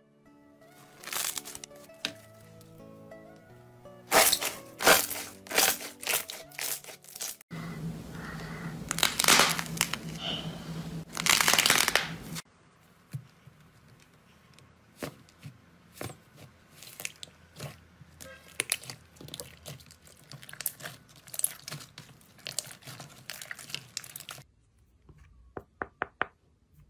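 Slime being pressed and squeezed by hand, with many sharp crackles and crunches, including the dried crust of an iceberg slime breaking under the fingers. Light background music with a melody plays over the first several seconds.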